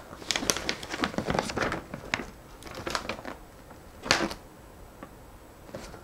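Paper rustling and crackling as a folded motherboard manual is handled and opened out, a quick run of crisp rustles in the first couple of seconds, then scattered ones, with one louder crackle about four seconds in.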